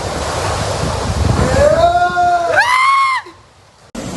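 Floodwater and storm wind rushing, with wind buffeting the microphone, then a long high wailing cry that rises and falls over about a second and a half; the sound cuts out briefly near the end.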